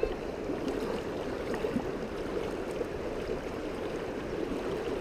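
Vaal River's shallow current rushing past, a steady even water noise.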